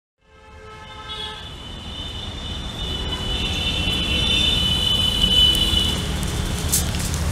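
Street traffic ambience fading in, a steady low rumble with a vehicle horn tooting near the start and a long high-pitched tone held for several seconds after it.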